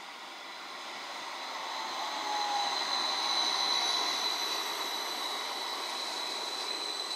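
CAF Urbos 3 tram running past close by along the platform, its running noise growing louder over the first few seconds and then holding steady, with a steady high-pitched whine throughout.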